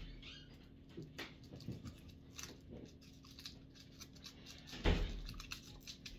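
Foil wrapper of a small chocolate egg being peeled and crinkled by hand: a scatter of soft rustles and ticks, with one louder bump about five seconds in.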